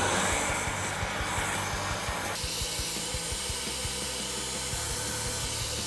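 SuperFlow 1020 flow bench's motors running, blowing a steady rush of air out through the exhaust port of a 24-valve Cummins cylinder head at 100 lift. The rush changes character about two and a half seconds in.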